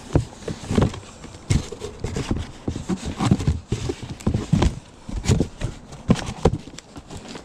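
Irregular knocks, clacks and rustling of items being handled and shifted around in boxes.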